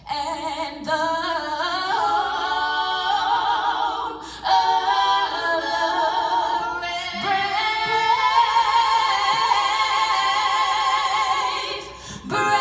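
A woman singing solo into a microphone, unaccompanied, in long held notes with vibrato. She pauses for breath about four seconds in and again near the end.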